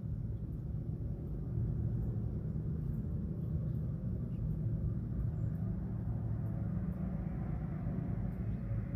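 Steady low rumble with a hum, under distant outdoor warning sirens that sound faintly in the background and grow a little stronger near the end.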